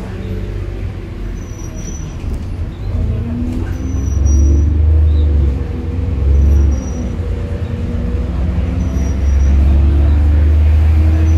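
Bus engine and drivetrain running as heard from on board, a heavy low rumble that swells louder twice as the bus pulls harder. A faint short high blip repeats about every two seconds.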